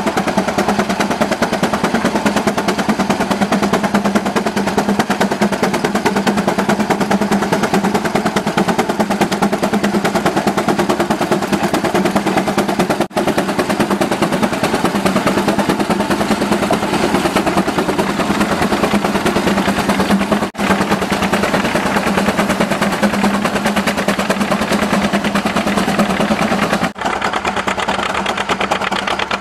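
Steam traction engine working under load pulling a plow: its exhaust beats out in a fast, steady chuff over the engine's running clatter.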